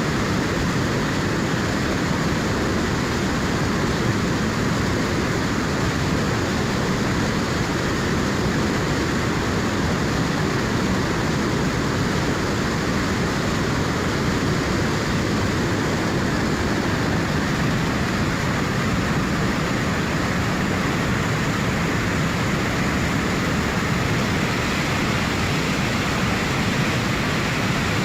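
Fast river water rushing steadily at high flow, a constant full roar with no breaks.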